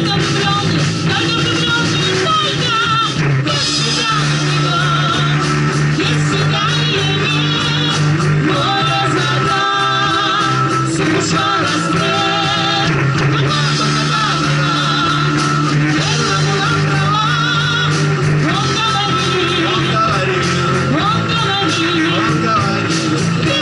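A live rock band plays a song through stage speakers: electric bass, electric and acoustic guitars and drums, with a woman singing lead.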